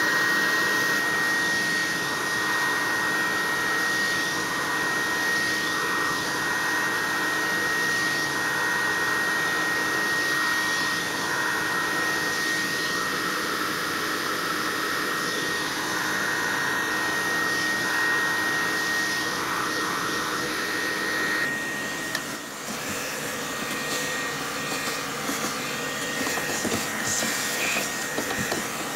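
Vacuum cleaner running steadily with a thin high whine, its hose sucking lint and dust off a tumble dryer's HEPA filter. About 22 seconds in the sound drops a little and turns less even, with light knocks.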